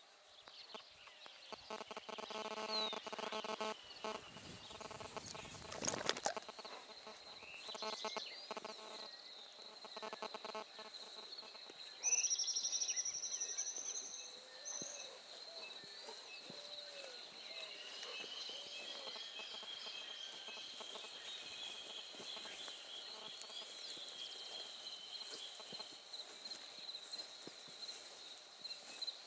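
Birds calling and singing in the countryside at dawn: pitched calls early on, a sharp whistle about twelve seconds in, and a long, high, even song from about eighteen to twenty-six seconds. Under them runs a steady high tone, and a single knock comes about six seconds in.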